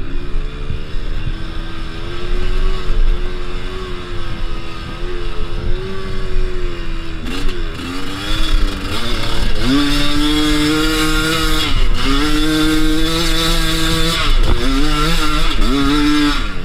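Two-stroke Kews enduro motorcycle engine running on and off the throttle at moderate revs. About halfway through it revs up hard and is held high, dropping briefly twice before picking up again.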